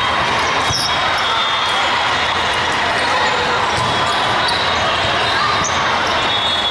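Steady din of a busy volleyball tournament hall: many overlapping voices with scattered ball hits echoing across the courts.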